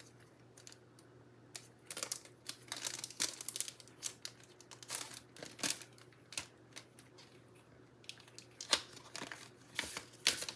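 Clear plastic packaging of a craft die set crinkling and rustling in the hands as it is handled and the contents are slid out, in irregular bursts.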